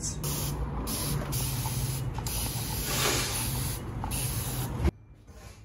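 Hand mist sprayer hissing in about four long sprays, each around a second, stopping suddenly near the end.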